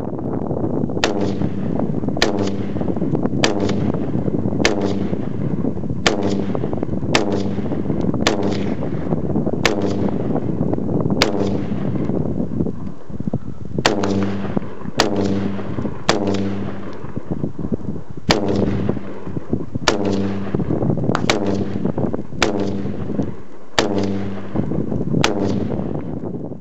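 Bushmaster M4 semi-automatic 5.56 mm rifle firing about twenty single shots, roughly one a second, with a pause of about two seconds near the middle. A steady low rumble runs under the shots.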